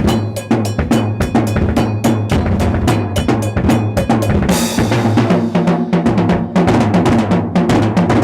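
Drum kit played fast: rapid snare and bass drum strokes, with a cymbal crash about halfway through.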